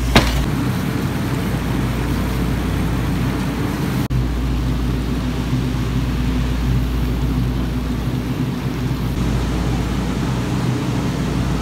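Steady outdoor wind noise rumbling on the microphone, mixed with the hiss of ocean surf below. It breaks off for an instant about four seconds in.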